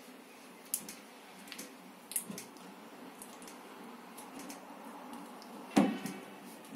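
A plastic uncapping fork scraping wax cappings off a honeycomb frame, heard as short faint scratches, uncapping the comb before extraction. Just under six seconds in comes a single sharp knock with a brief ring, the loudest sound.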